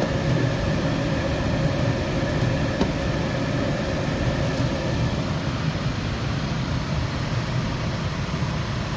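Rheem 90% gas furnace firing with its high pressure switch jumpered: a steady rumble of the burners and draft inducer motor, with a faint whine that fades about halfway through.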